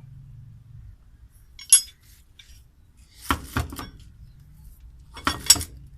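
Metal hand tools clinking and ringing as they are picked up and set down, in three short clusters about two seconds apart.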